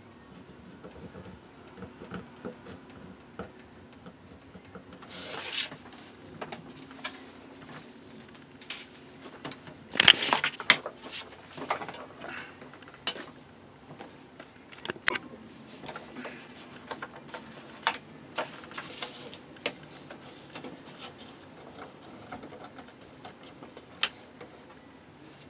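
A paper template rustling and sliding as it is handled on a pine board, with scattered light taps and clicks. The loudest rustling comes about ten seconds in.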